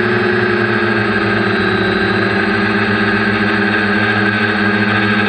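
Quadcopter's electric motors and propellers buzzing steadily in flight, heard from the onboard camera, with a slow wavering beat as the motors run at slightly different speeds.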